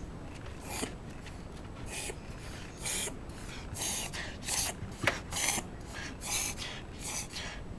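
Shiba Inu reverse sneezing: a mild bout of about nine short, harsh pulls of breath through the nose, roughly one a second and closer together in the second half, with a sharp click about five seconds in.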